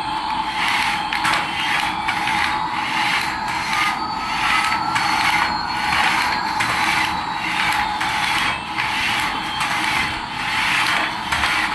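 Small battery toy motor and plastic gears whirring with a rasping pulse about every two-thirds of a second, and a faint whine gliding slowly in pitch.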